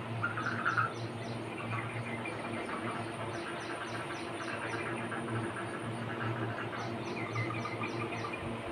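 Birds and insects calling: repeated chirping series over a steady, high-pitched insect drone, with one louder chirp about half a second in.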